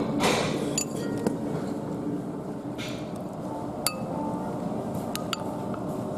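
A short slurp of noodles at the start, then a few light clinks of an eating utensil against a ceramic plate.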